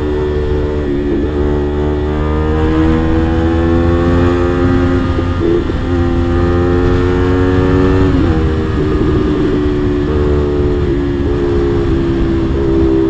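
CFMOTO 450SR's parallel-twin engine pulling at highway speed, its pitch climbing slowly, then dropping suddenly about eight seconds in and holding steady with small wobbles. A heavy low rush of wind and road noise sits underneath.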